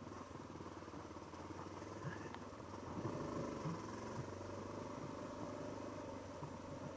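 Honda XR650L's air-cooled single-cylinder four-stroke engine running at low revs at trail speed, picking up a little about three seconds in.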